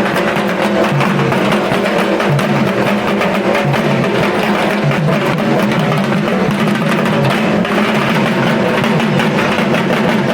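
Loud, continuous music driven by drums and percussion, with steady pitched tones underneath.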